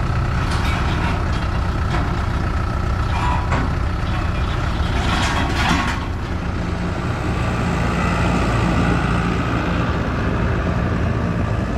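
Heavy vehicle engine running steadily, with a short hiss of air about five seconds in.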